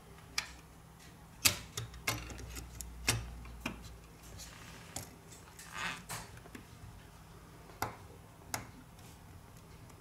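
Irregular small clicks and taps of metal tweezers and small parts against an opened smartphone's frame and board during reassembly, about a dozen in all, the sharpest about one and a half and three seconds in.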